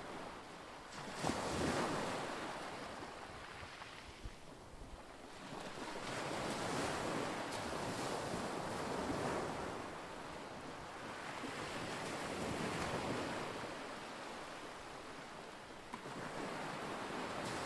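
Small waves washing on a lake, with wind on the microphone. The noise swells and fades in slow surges every few seconds.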